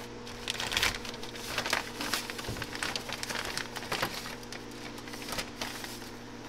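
Clear plastic packaging crinkling and rustling in short irregular bursts as it is cut open with a knife and scissors, over a faint steady hum.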